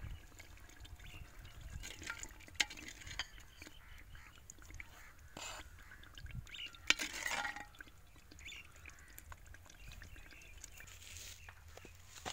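Steel ladle knocking and scraping against a clay pot and clay bowl as curry gravy is ladled out, a few sharp knocks among lighter clicks over a low rumble.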